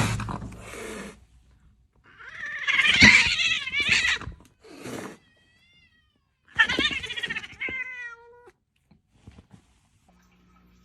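Cat meowing and yowling in several long calls whose pitch wavers, the first starting suddenly and loudly.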